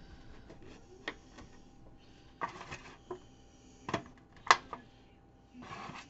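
Zucchini halves set down and pressed into a disposable aluminium foil pan: a few sharp knocks and crinkles of the thin foil, the loudest about four and a half seconds in, with short rustles between.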